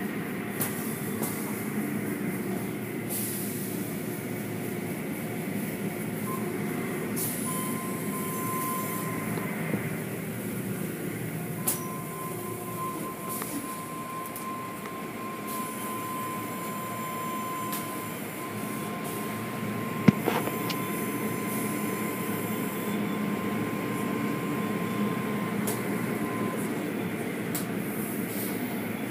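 Automatic car wash machinery and water spray heard from inside the car: a steady rumbling wash with scattered clicks and spatters. A thin high whine runs through most of the middle, and a single sharp knock comes about two-thirds of the way in.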